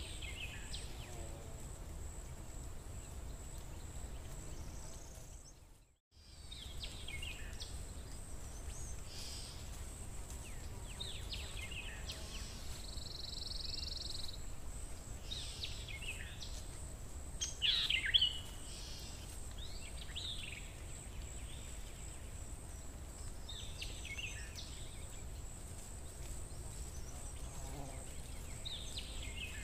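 Birds chirping and calling at intervals over a steady low hum, with a louder burst of calls about eighteen seconds in. The sound drops out briefly about six seconds in.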